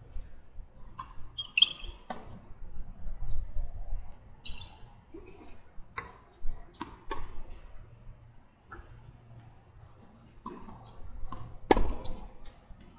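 Tennis ball being struck by rackets and bouncing on a hard court during a doubles rally: several sharp pops at irregular intervals, with a couple of short high squeaks.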